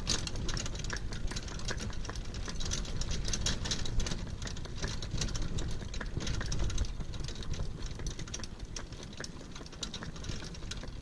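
Hartland Piccolo pony cart rolling along a tarmac road, its metal frame and wheels rattling and clattering steadily over a low rumble, with the pony's hoofbeats on the road mixed in.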